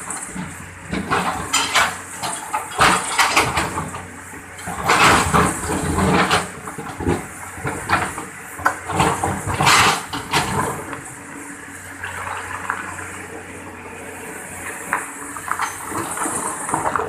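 Excavator digging into a river bank: a steady engine hum under irregular clattering knocks and splashing water.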